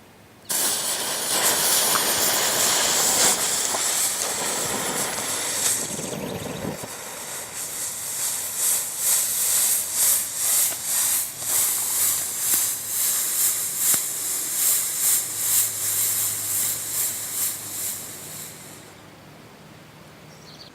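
Four smoke-ball fireworks with their fuses twisted together, hissing as they burn. The hiss starts suddenly about half a second in, turns into an uneven pulsing hiss of about two surges a second about a third of the way through, and dies away near the end.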